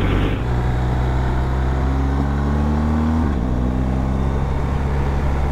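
BMW R 1250 GS boxer-twin engine pulling away and accelerating, its pitch climbing, then dropping with an upshift about three seconds in and running on steadily, over wind noise.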